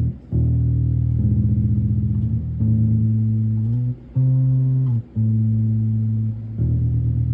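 Amplified guitar in a low register playing a slow line of about six single held notes, each ringing for about a second with short breaks between. A couple of them bend downward as they end.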